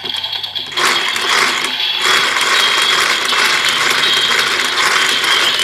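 Plastic crank handle of a Bandai DX Evol Driver toy belt being wound round, a continuous ratcheting clatter of gears and pawl that starts about a second in.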